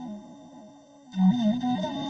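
Background music: a slow instrumental melody of held notes that fades out and then starts a new phrase just after a second in.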